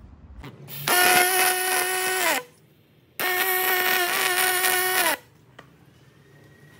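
MIG welding on an aluminium seat pole: two runs of a steady, pitched electric buzz from the welding arc, the first about a second and a half long starting about a second in, then after a short pause a second of about two seconds, each ending with a quick drop in pitch as the arc is stopped.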